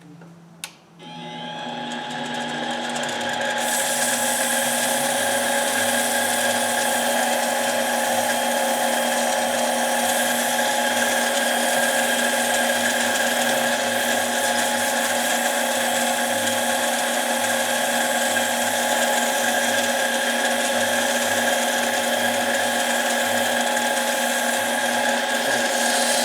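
Harbor Freight mini lathe switched on with a click about half a second in, its motor spinning up over about three seconds and then running at a steady whine for polishing a part.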